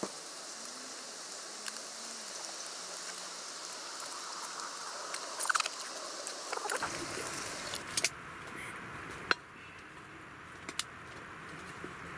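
Knife cutting green beans and carrots on a wooden cutting board, then the vegetables being set into a skillet. Scattered light knocks and clinks over a steady hiss, the sharpest click about nine seconds in.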